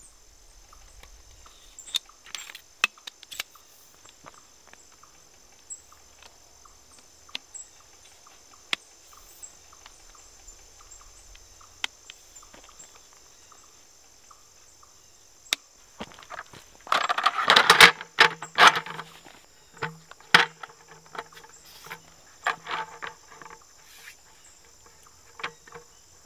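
Scattered clicks and knocks of a metal camp-table frame being fitted together by hand, with a louder stretch of rattling and scraping about two-thirds of the way through as the roll-up slat tabletop is handled and laid on. A steady high insect chorus runs underneath.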